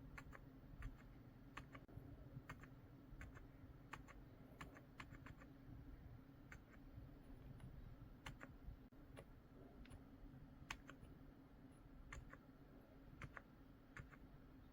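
Faint keystrokes on a COX CQK81 mechanical keyboard with Deep Oil switches, sharp clicks typed at an uneven pace of about two or three a second.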